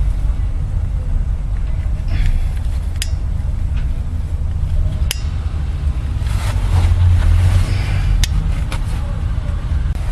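Hand tools clicking and scraping against metal as the retaining pin of a Ford Focus vehicle speed sensor is worked at: a few sharp clicks, and a scraping stretch about six to eight seconds in, over a steady low rumble.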